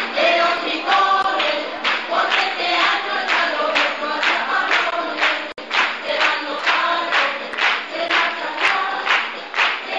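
Carnival murga chorus of many voices singing together to a steady beat of about two strokes a second, with a split-second dropout a little past halfway.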